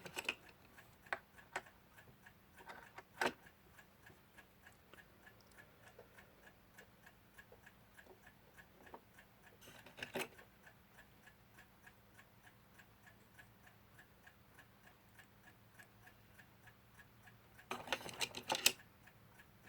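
A mechanical clock ticking steadily and rapidly, with occasional sharp clicks of small metal clock-movement parts and tools being handled and fitted. The clicks come a few times near the start, once about halfway, and in a quick cluster near the end.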